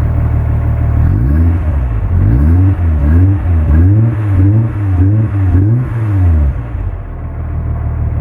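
2.8-litre VR6 engine of a Mk2 VW Golf idling, then revved in a run of quick throttle blips, each rising and falling in pitch, before settling back to idle near the end. It runs on new spark plugs and HT leads, and to the owner's ear it sounds better but still not right.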